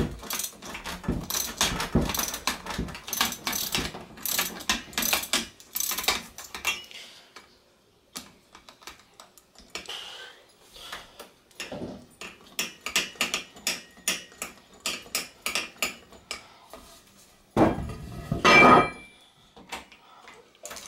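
Ratchet wrench clicking in quick runs as the hex-bit socket backs out the bolts at the bottom of the fork's lower legs, pausing midway. A louder clattering scrape of metal comes near the end.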